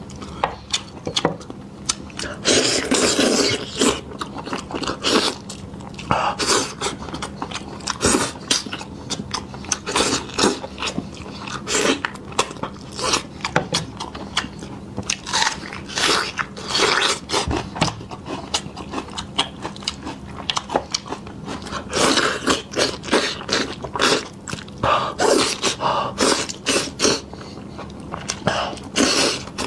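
Close-miked eating: irregular biting, chewing and wet mouth smacks as spicy meat is eaten, with a faint steady hum underneath.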